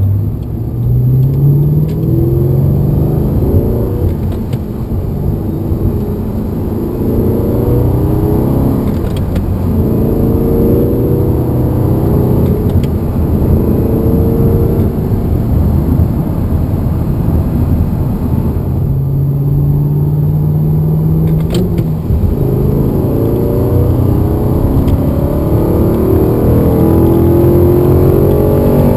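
Audi R8's naturally aspirated 4.2 FSI V8 accelerating hard through the gears. The engine note climbs in pitch and falls back at each gear change, several times over.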